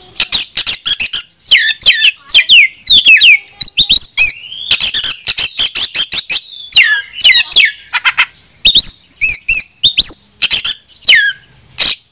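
Oriental magpie-robin singing loudly in a rapid, varied stream of sharp clicks and whistled notes that slur downward, with a short pause a little past the middle. It is a territorial challenge song that calls out a rival male.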